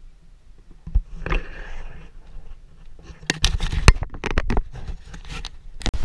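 Handling noise on a handheld camera's microphone: a thump about a second in, then a dense run of irregular knocks, scrapes and crackles in the second half.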